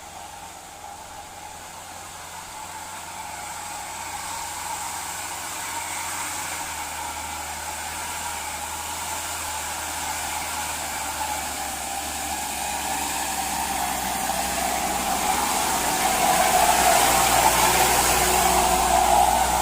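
Hino Dutro light truck's diesel engine pulling uphill under load, growing steadily louder as it approaches and loudest near the end.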